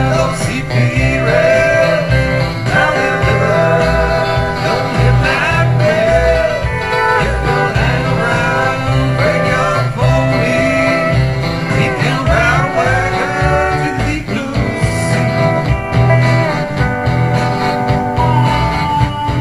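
Country song: a singing voice over guitar, with a steady beat.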